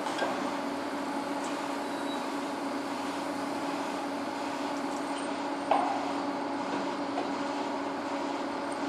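Foundation drilling rig running steadily with a constant engine and hydraulic hum as its drill tool is lowered on the mast. A single sharp knock sounds about six seconds in.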